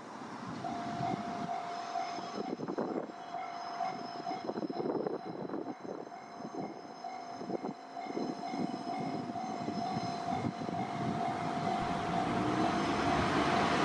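Railway level-crossing warning alarm sounding steadily, with wind gusting on the microphone; a broad rumble builds louder over the last few seconds.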